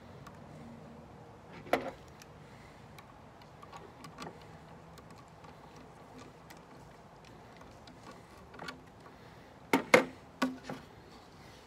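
Wooden crate parts knocking together as they are fitted by hand: a sharp knock about two seconds in, a few faint taps, then a quick run of three louder knocks near the end.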